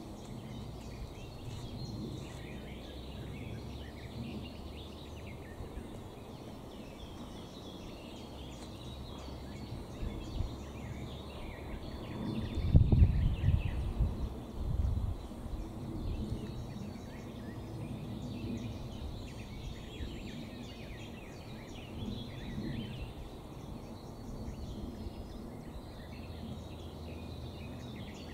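Birds singing and chirping in spring woodland over a steady outdoor background, with a low rumble for a couple of seconds about halfway through.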